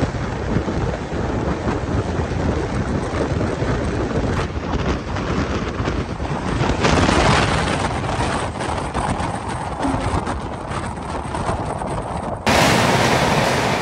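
Moving passenger train: a steady rumble of wheels on the rails with frequent clattering knocks, and wind buffeting the microphone. Near the end the noise turns abruptly louder and hissier.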